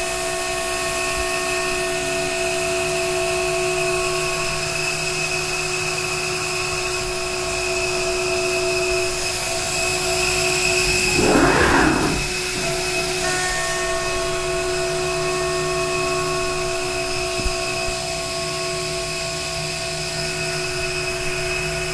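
CNC router spindle running with a steady whine of several pitches while its facing cutter takes a light pass along an aluminium rail channel. A louder rushing swell comes about eleven seconds in, then the steady whine carries on.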